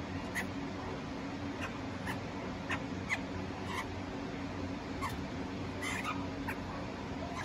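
Young black-throated laughingthrushes giving short, sharp squeaky call notes, one or two a second at irregular intervals.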